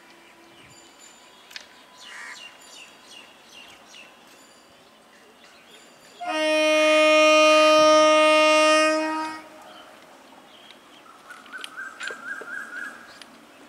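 Indian Railways EMU local train's horn: one steady blast of about three seconds, starting about six seconds in, over a low trackside background.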